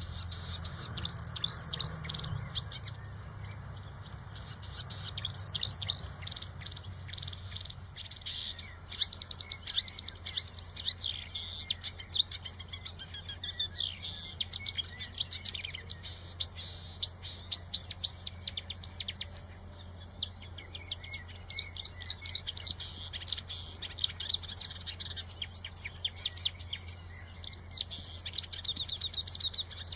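Songbird singing a fast, continuous twittering song of rapid high chirps and quick sweeping notes, over a faint steady low hum.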